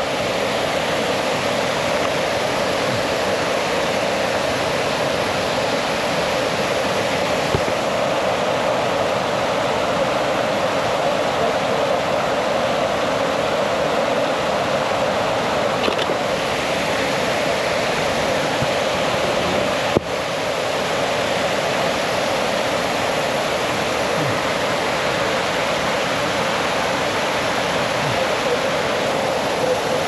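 Shiraito Falls, a broad curtain of many thin falls over a rock face, rushing with a steady, loud roar of falling water. A single sharp click sounds about two-thirds of the way through.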